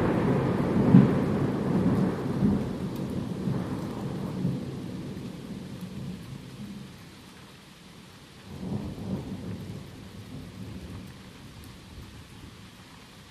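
Thunder rumbling and fading away during a heavy thunderstorm, with a second, shorter roll of thunder swelling about eight and a half seconds in and dying down, over falling rain.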